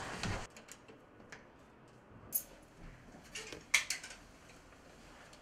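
Mostly quiet room with a few faint, scattered clicks and knocks. The sharpest comes a little under four seconds in.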